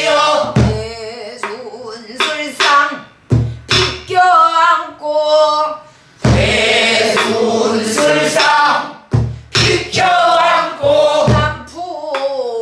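A woman singing pansori in a strong voice with wide vibrato, phrases broken by short breaths, accompanying herself with deep strokes on a buk barrel drum struck with a stick and the open hand.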